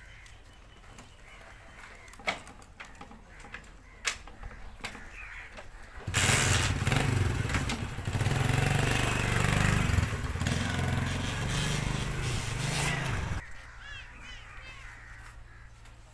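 A small motorcycle engine starts up about six seconds in and runs for about seven seconds, then cuts off suddenly. Two short knocks come before it.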